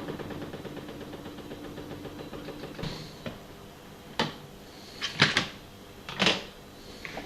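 Twin-tub washing machine's spin dryer winding down, its motor hum fading and stopping. Then a series of sharp knocks and clicks, the loudest about five and six seconds in.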